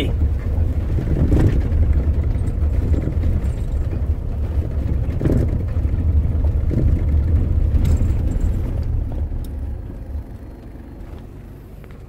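In-cabin running noise of a Toyota Hilux/SW4 on the move, a low rumble, with a few short knocks from the brake pedal, which has play in its pivot and knocks under the dash. The rumble fades about ten seconds in.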